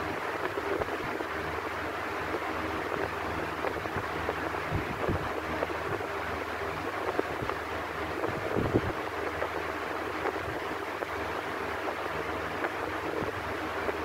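Electric fan running steadily: an even whoosh of moving air over a low motor hum, with a few faint brief knocks, the strongest about nine seconds in.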